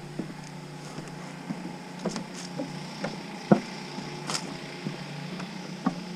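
Footsteps and small knocks of kit as an airsoft player walks across a bridge, irregular taps about every second over a steady low hum, with one sharper knock near the middle.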